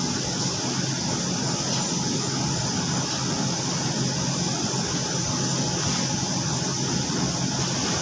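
Steady machinery drone with a constant high hiss, typical of commercial laundry machines running.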